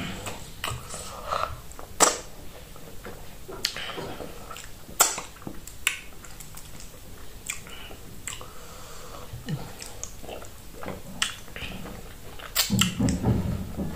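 Wet chewing and mouth clicks of a person eating fufu with okro soup by hand. The sounds are louder and denser near the end, as soup is licked from the fingers.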